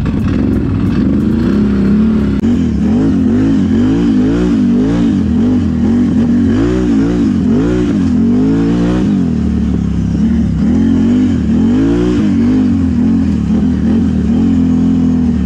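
ATV engine being ridden on a trail, revved up and down with the throttle: a run of quick rises and falls in pitch from about two to nine seconds in, and again around twelve seconds, with steadier running in between and near the end.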